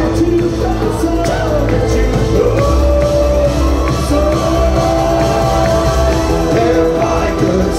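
Synth-pop band playing live in a hall, with a sung vocal holding long notes over heavy bass and synths, recorded from within the crowd, with some crowd shouts.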